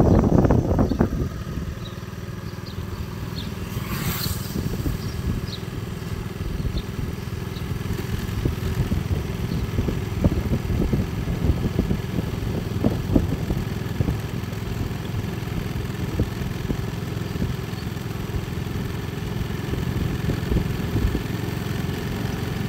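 Motorcycle engine running steadily while riding along, heard as a continuous low rumble.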